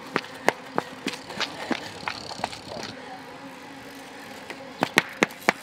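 Sharp clicks and knocks on paving from a cyclocross rider and bicycle: about three a second at first, then a quicker cluster about five seconds in.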